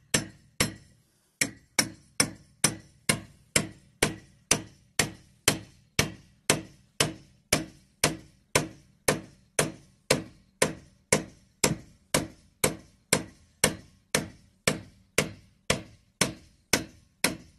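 Hammer repeatedly striking the head of a metal spiral ground anchor, driving it into the ground: steady blows about twice a second, each a sharp clank with a short ring, with one brief pause about a second in.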